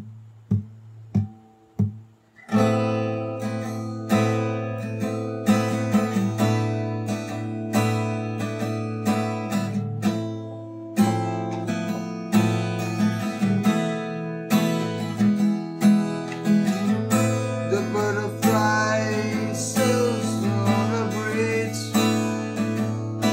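Höfner acoustic guitar: four single plucked notes about half a second apart, then chords played continuously and left ringing. A man's voice starts singing the first line over the guitar near the end.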